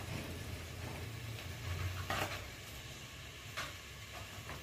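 Faint sizzling of sliced onions, green chillies, ginger and garlic in groundnut oil in an open aluminium pressure cooker, over a low steady hum, with two brief clicks about two and three and a half seconds in.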